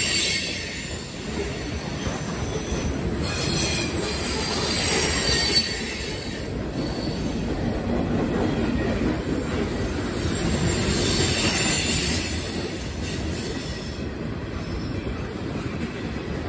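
Freight train's covered hoppers and tank cars rolling past close by: a steady rumble of steel wheels on the rails, with high-pitched wheel squeal swelling and fading, strongest around three to five seconds in and again about eleven seconds in.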